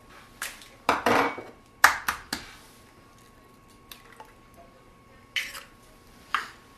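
Eggs cracked one at a time against small glass bowls: a series of sharp taps and clinks of shell and glass, loudest about two seconds in.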